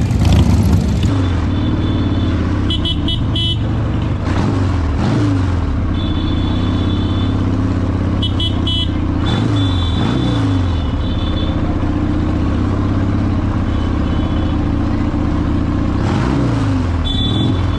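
Motorcycle engines running steadily during a group ride, the engine note dropping sharply several times, about four, five, ten and sixteen seconds in. Short high-pitched ringing tones come and go over the top.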